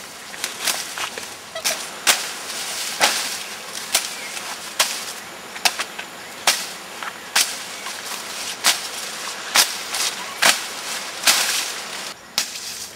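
Machete slashing through tall grass, a sharp swish-and-cut stroke about once a second in a steady rhythm, with grass rustling between strokes.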